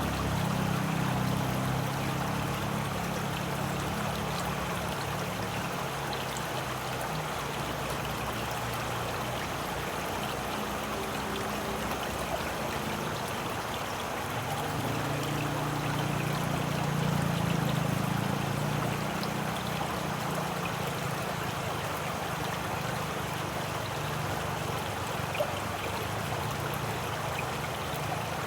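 Running water flowing steadily, with a deeper low rumble that swells near the start and again about halfway through.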